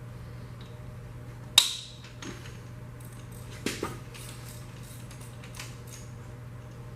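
Metal-on-metal clinks: one sharp clink about a second and a half in, the loudest, then a double clink near four seconds and a few lighter taps. A steady low hum runs underneath.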